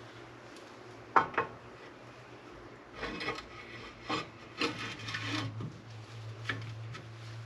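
Hand work on car parts: two sharp knocks about a second in, then a few seconds of scraping and rubbing, over a steady low hum.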